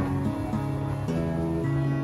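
Instrumental background music of held notes that change every half second or so.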